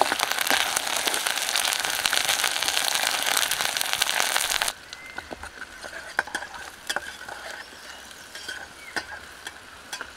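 Chopped garlic, green chillies, onion and bay leaves sizzling in hot oil in a small pot over a wood fire, stirred with a metal spatula. The sizzle is loud at first, then drops abruptly about five seconds in to a much quieter sizzle with scattered sharp clicks.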